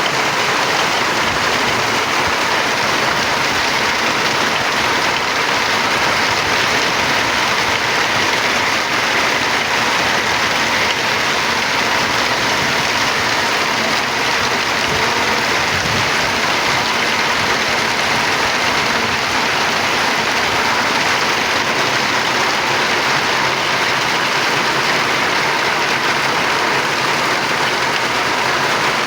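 A loud, steady rushing noise that does not change.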